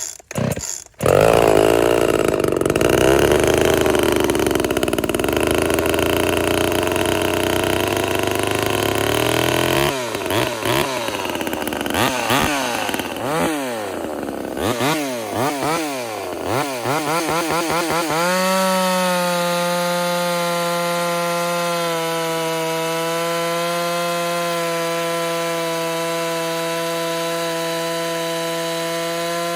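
Ported Homelite VI-130 two-stroke chainsaw being pull-started and catching about a second in. It runs unevenly at first, is then revved up and down several times, and for about the last ten seconds is held steady at high revs.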